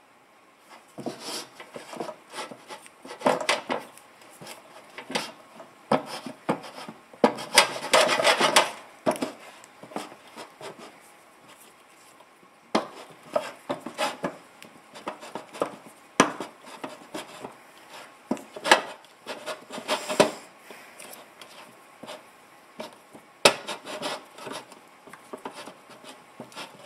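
Butter being rubbed by hand into the cavities of metal cookie-mold trays: irregular rubbing and scraping strokes, with occasional sharp knocks against the trays.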